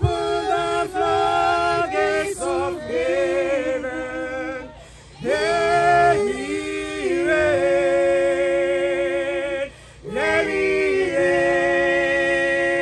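A small group of women singing together unaccompanied into a handheld microphone, in long held notes, with two short pauses between phrases.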